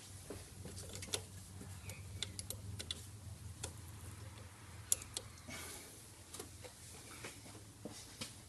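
Scattered light clicks and taps at uneven spacing, from a hand working at the intercooler-to-turbo hose in an engine bay, over a low steady hum.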